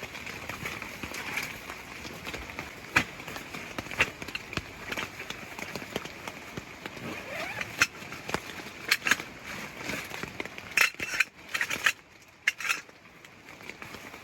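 Steady rain hiss with many scattered sharp clicks and light clinks, thickest in the second half; the hiss dips briefly about twelve seconds in.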